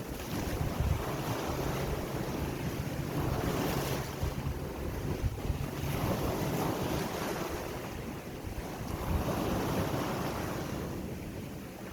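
Ocean waves surging and breaking, swelling and falling back every few seconds, with wind rumbling on the microphone.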